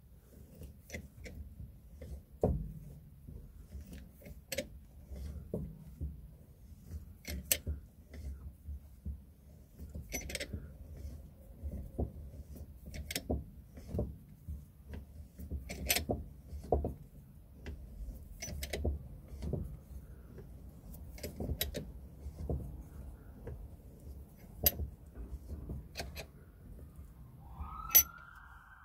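Irregular metallic clicks and clinks, about one a second, as a brake caliper piston rewind tool's threaded spindle is wound in to push the caliper piston back into its bore. A brief rising squeak comes near the end.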